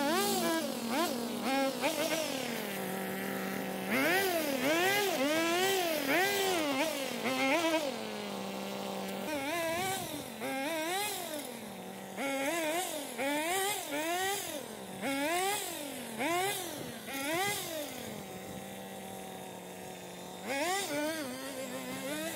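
Earthquake mini tiller's small gas engine being throttled up and down again and again, each rev lasting about a second, with a few short returns to a steady idle.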